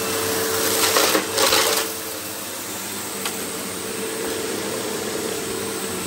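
Electrolux The Boss Cyclonic Lite upright vacuum cleaner running steadily, its motor holding an even whine, with two brief louder rushes about a second in.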